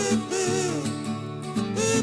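Background song: a sung melody over guitar accompaniment.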